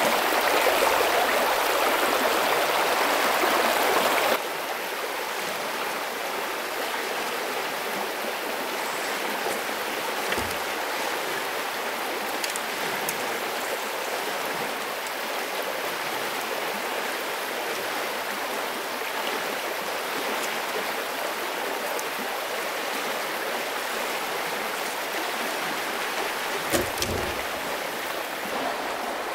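Shallow stream running over stones: a steady rush of water, louder for the first four seconds, then dropping suddenly to a softer, even flow. A couple of brief knocks sound over it.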